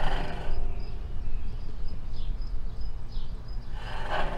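Faint high bird chirps repeating every half second or so over a steady low rumble, with brief noisy rustles at the start and again near the end.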